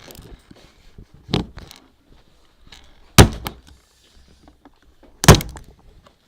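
Three separate sharp thuds about two seconds apart, each with a short tail: an object being struck or dropped to make foley sounds.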